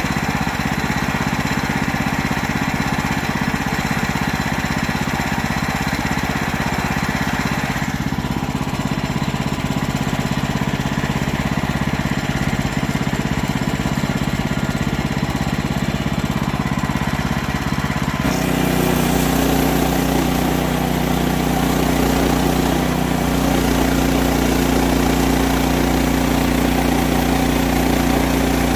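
Gasoline engine of a Woodland Mills portable band sawmill running steadily while milling white oak. Its sound changes abruptly about two-thirds of the way in, taking on a steadier, lower hum.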